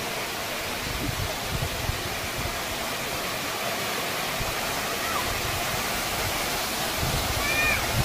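Waterfall: water falling and splashing onto rock as a steady, even rush of noise.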